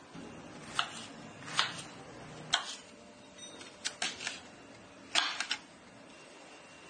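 Kitchen knife slicing shallots and red chilies on a wooden cutting board: a series of sharp, irregular taps as the blade meets the board, about eight or nine of them, some in quick pairs and threes, stopping about a second before the end.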